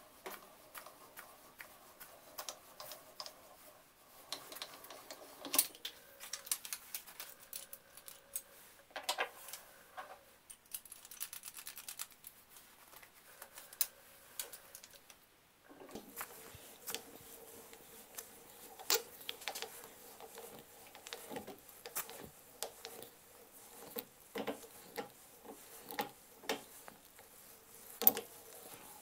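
A steel reamer turning in the pilot hole of a dense bulletwood handle. It makes an irregular run of small clicks and scraping as the hole is enlarged to take the tang, with a brief pause about halfway through.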